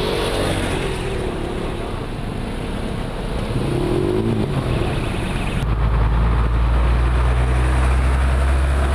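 Motor vehicle engine running steadily. About halfway through, a louder, deeper engine hum takes over and continues.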